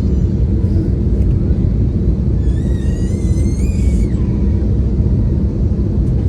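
Steady, loud low drone of an airliner cabin in flight. About two and a half seconds in, a brief high wavering sound rises over it for over a second.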